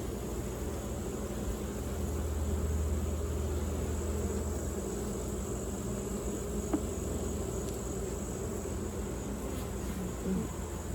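Honeybees buzzing steadily around an open hive while its frames are being inspected, with one faint click about two-thirds of the way through.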